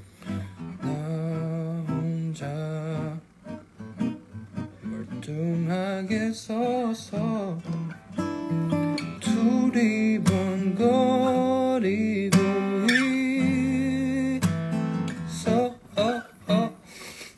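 Steel-string acoustic guitar played fingerstyle: plucked melody notes and chords in phrases with short pauses, and a voice humming along in places.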